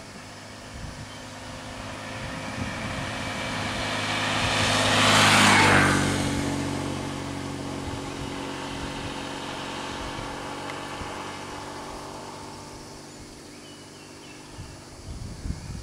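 A motor vehicle passing by on the road: its engine and tyre noise grow louder for about five seconds, peak about five and a half seconds in, then the engine hum fades away slowly.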